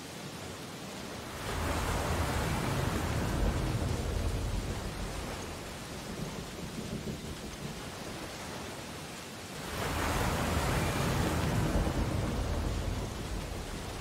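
Sea waves breaking on a shore: the surf surges up twice, about eight seconds apart, each swell a deep rushing hiss that lasts a few seconds before falling back to a softer steady wash.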